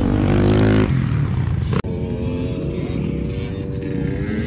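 Dirt bike engines running steadily, cutting off abruptly about two seconds in and giving way to another steady engine sound.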